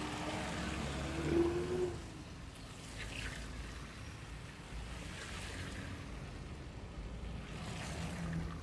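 An engine running steadily among rushing, splashing water, with a brief rise in engine pitch about a second in.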